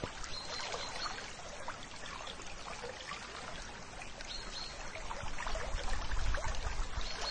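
Water running or splashing steadily in a dense, crackling rush, with a low rumble swelling near the end.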